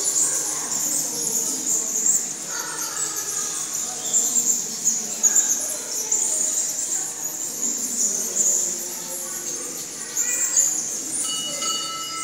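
A steady high-pitched chirring, like insects, with faint distant voices echoing. Near the end a clear ringing tone comes in.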